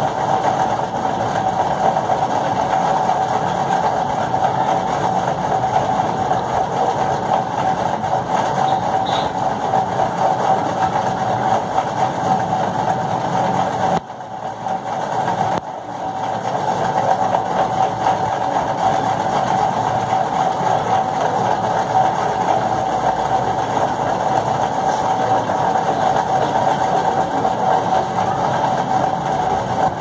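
A steady mechanical hum from a running motor, with a strong mid-pitched tone. It drops away sharply for a couple of seconds about halfway through, then comes back.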